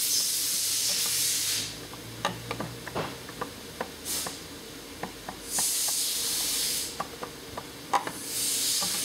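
Flat-bladed screwdriver and hands prying and wiggling a snowmobile oil pump out of its tight fit in the oil tank: scattered small clicks and taps, with a few short spells of hiss.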